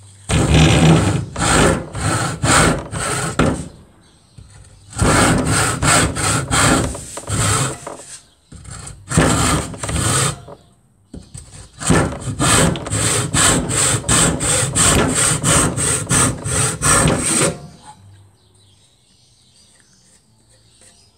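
English-made Spear & Jackson tenon saw cutting across a piece of wood, with back-and-forth strokes about two to three a second. The strokes come in four runs with short pauses and stop about 18 seconds in.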